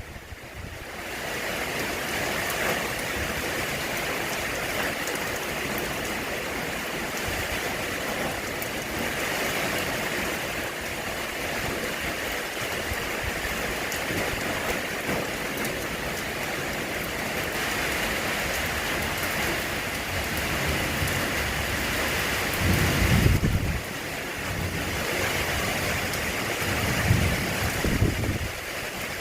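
Steady heavy rain falling, an even hiss throughout, with two brief low rumbles in the last few seconds.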